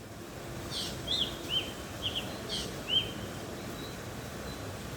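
Black drongo calling: short, clear notes that arch up and fall, mixed with two harsh rasping calls, about six calls in all, over a steady background hiss.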